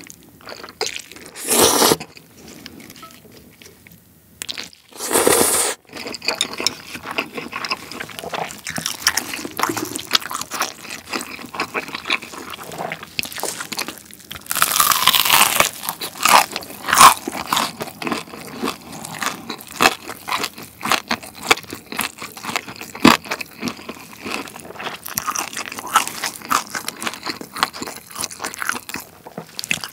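Two short slurps of noodles in the first few seconds, then close-miked crunching and chewing of a roasted pork hock's crackling skin, roasted long until hard and crisp, with the loudest bites about halfway through.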